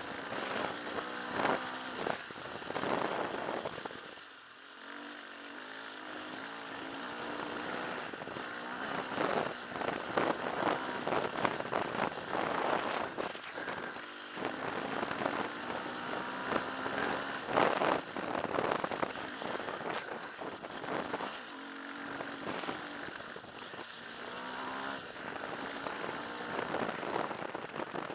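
Off-road motorcycle engine under way on a dirt track, revving up and down, over a steady rush of noise. The throttle is shut briefly about four seconds in, again around the middle, and about three quarters of the way through.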